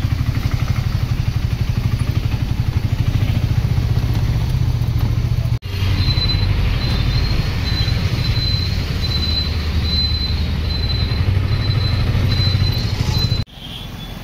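Auto-rickshaw engine running while under way, heard from inside the passenger cab as a fast, low, chugging throb. It breaks off abruptly twice. Near the end it gives way to quieter street traffic.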